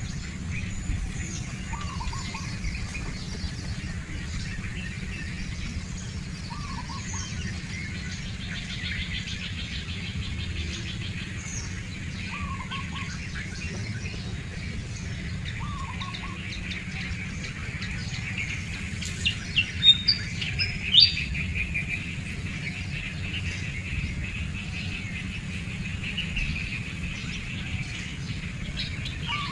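Wild birds chirping and calling, with a short call repeated every few seconds and a quick cluster of sharper, louder chirps about two-thirds of the way through, over a steady low rumble.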